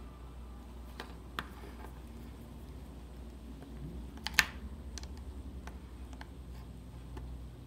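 Scattered small clicks and taps of plastic parts and a small tool while a dashcam is being taken apart, the sharpest click a little past the middle, over a steady low hum.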